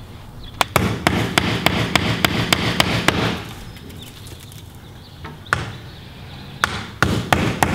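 Hammer driving 1.5-inch flathead nails through a new plastic garage door weather strip into the door jamb: rapid sharp strikes about four a second. One run of strikes, a pause with a single blow, then a second fast run near the end.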